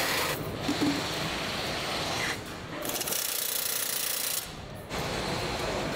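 Tractor assembly-line noise: a dense mechanical clatter and whirr of plant machinery and tools, with a high hiss in the middle. It changes abruptly twice.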